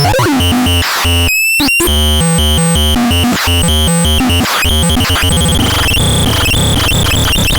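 Loud synthesized electronic sound effects from the ANERDAN C203M: rapidly chopped beeps and buzzes that jump between pitches, with sweeping glides and a brief cut-out about a second and a half in.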